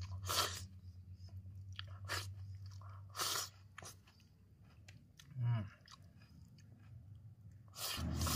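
A man eating noodles from a bowl with chopsticks: a few short slurps and chewing, with a short low hum of the voice about five and a half seconds in. Under it runs a low steady hum that drops out midway and returns near the end.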